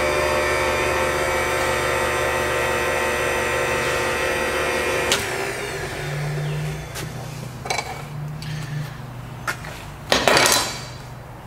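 A workshop machine's electric motor running steadily with a whine, switched off about five seconds in and spinning down. Then scattered metal clicks and knocks, and a short loud rush of noise about ten seconds in.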